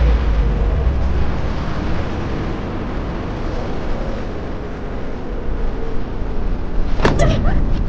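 A steady, loud rushing noise with a deep rumble. A short, sharp sound cuts in about seven seconds in.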